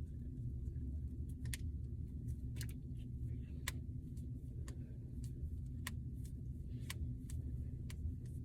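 Finger knuckles cracking: about ten small, sharp pops spaced unevenly over several seconds, over a steady low background hum.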